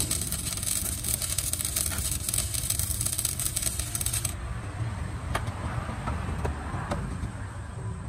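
Stick (arc) welding over a crack in a truck chassis rail: the electrode's arc crackles and hisses steadily, then cuts off abruptly about four seconds in as the bead is finished. A steady low hum carries on underneath, with a few faint clicks after the arc stops.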